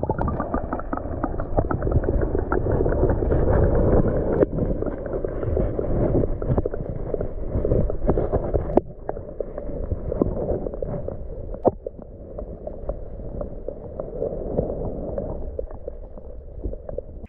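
Muffled underwater sound from a camera held submerged in a shallow pond: a dense, low rumble of moving water with frequent small clicks and knocks. It gets somewhat quieter about nine seconds in.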